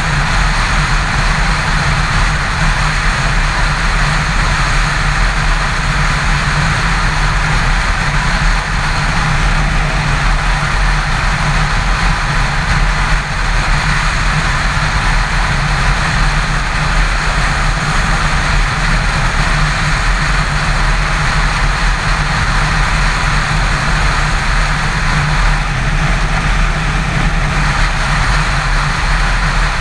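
Yamaha FZ6 inline-four engine running steadily at highway cruising speed, mixed with constant wind and road noise from riding.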